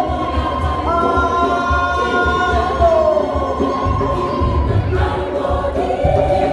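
A choir singing in several voice parts, with long held notes that bend in pitch, over a steady low pulsing beat.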